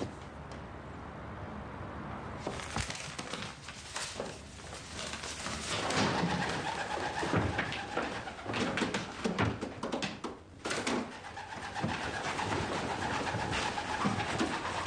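A pigeon flapping its wings as it flies about a room, in runs of quick flutters that start about two and a half seconds in.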